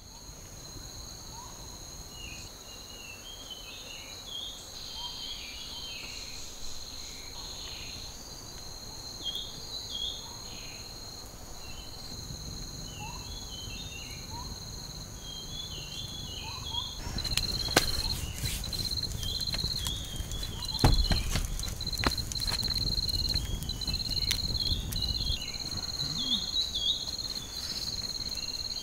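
Forest ambience: insects droning steadily at a high pitch, with short bird chirps scattered throughout. From a little past halfway, a run of sharp crackles and a low rumble join in.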